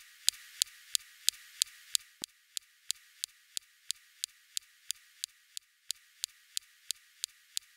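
SuperCam laser shots striking a Martian rock, recorded by the Perseverance rover's mast microphone: a steady train of sharp clicks, about three a second. The clicks are louder for the first two seconds, then softer.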